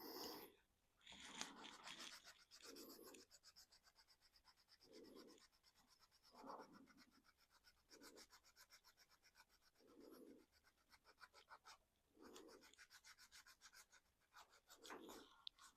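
Faint, rapid back-and-forth rubbing on the painted plastic of a 3D-printed RC car body, a light scratchy stroke many times a second, typical of hand sanding or scuffing the paint to weather it. Soft low bumps come every two seconds or so.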